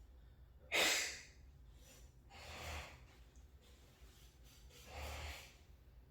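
A person breathing out heavily three times, about two seconds apart; the first breath starts suddenly and is the loudest.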